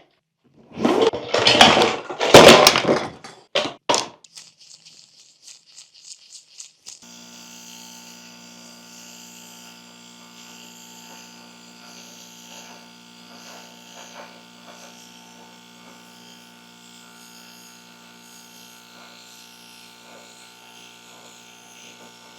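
Loud scraping and cracking handling noises on the model's parts, then a quick run of faint ticking. About seven seconds in, a small electric motor starts a steady hum with several fixed tones and a hiss, and runs on evenly.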